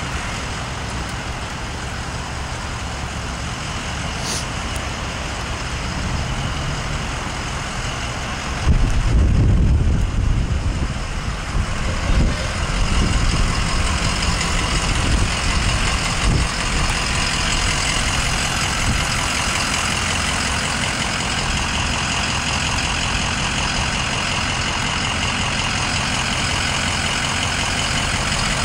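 Fire truck engines idling steadily. About a third of the way in, a louder low rumble joins in and stays.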